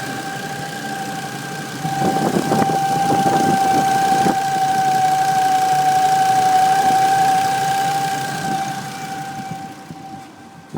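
A steady high whistle over a car engine running at idle, of unknown cause. The whistle holds one pitch and stops near the end, and a few short knocks come between about two and four seconds in.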